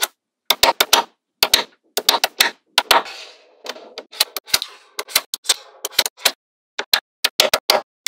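Small neodymium magnetic balls clicking and snapping together as strips of them are set down and pressed onto a slab of balls. The clicks come in quick clusters of sharp ticks, with a short rattle now and then and completely silent gaps between.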